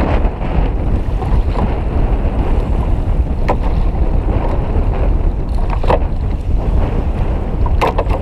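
Wind buffeting an action camera's microphone over choppy sea water sloshing around a kayak, with a few short sharp knocks or splashes about halfway and near the end.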